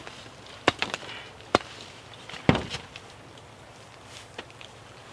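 Dry sticks cracking and knocking, five sharp cracks in the first two and a half seconds, then only faint sounds.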